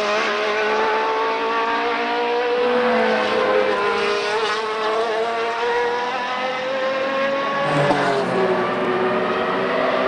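Group C sports-prototype race cars accelerating out of a corner one after another, their engine notes rising slowly as they pull away. A new engine note comes in about eight seconds in as the next car arrives.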